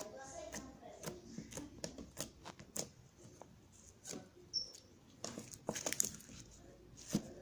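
Slime being handled, giving irregular sharp little pops and clicks.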